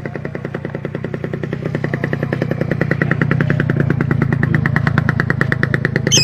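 A small engine running with a fast, even pulse that grows louder over the first few seconds and then holds steady. A bird gives one short high chirp right at the end.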